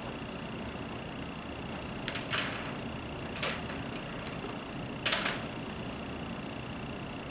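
Quiet room tone with a steady high whine and low hum, broken by three brief noisy sounds about two, three and a half and five seconds in.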